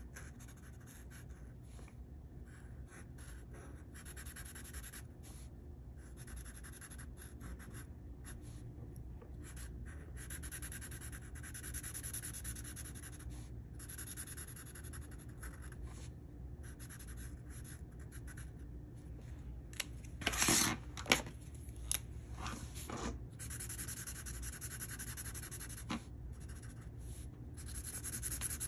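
Sharpie marker tip rubbing across paper in quick back-and-forth strokes, coming in short runs with brief pauses. About two-thirds of the way through there are a few louder sharp clicks.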